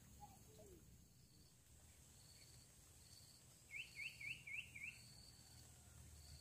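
Near-quiet forest ambience. About four seconds in, a bird calls a quick series of five short swooping notes, and a faint high note repeats every second or less.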